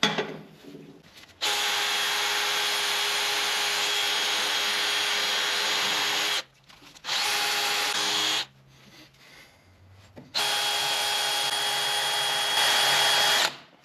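A drill spinning a wire-wheel brush, scrubbing old grease and gunk off a Ford 8N tractor stabilizer arm's ball end. It runs three times with a steady motor whine: a long run, a short one, then another long one.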